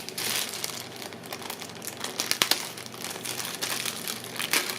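Sealed postal parcel being opened by hand: the packaging crinkles and rustles, with sharp tearing snaps, one about halfway through and a louder stretch near the end.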